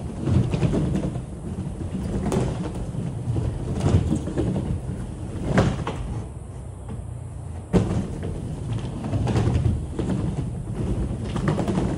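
Skateboard wheels rolling over the ramps of a wooden skate bowl: a steady low rumble broken by several sharp knocks of the board and trucks on the wood, the loudest about four and eight seconds in.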